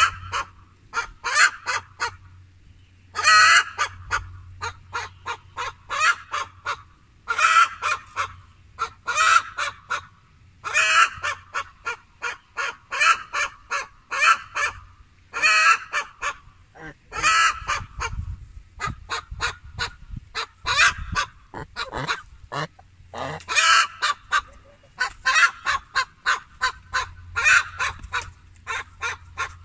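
Domestic geese honking in repeated bursts of short, rapid calls, one burst every second or two.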